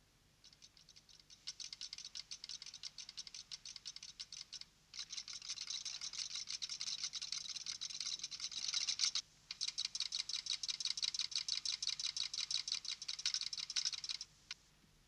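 Rapid, even mechanical clicking of a small teleprinter-style ticker-tape printer printing out a message. It runs in three stretches, with brief pauses about five and nine seconds in.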